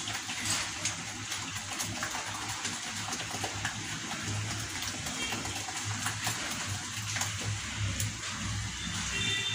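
Hand mixing and kneading coarse ground dal batter in a steel bowl: a steady wet rustling and squishing with scattered light clicks, over a low hum.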